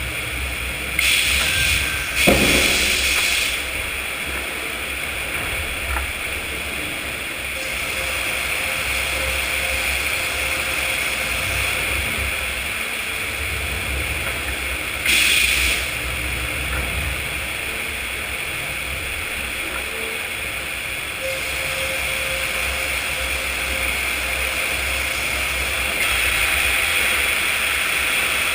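Sawmill machinery running steadily with a constant low rumble, broken twice by short, louder high-pitched noise bursts: about a second in, and again near the middle.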